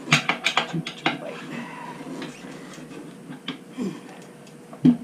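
Metal tire-changing tools clinking and knocking against a motorcycle wheel rim and the tire-changing stand while the tire bead is pried off: a quick run of sharp clinks in the first second, scattered ticks after, and a dull knock near the end.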